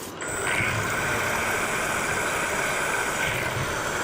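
An electric grinder running steadily, switched on or brought to the work about a quarter second in, with a steady high whine over its hiss.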